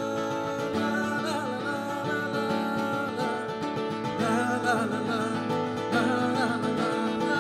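Live banjo and acoustic guitar playing together, the guitar strummed under a plucked banjo, with a wordless sung melody that bends and wavers on top, growing a little louder about halfway through.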